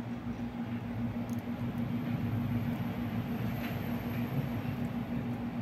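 A steady, low machine hum, even throughout, with only faint handling noise over it.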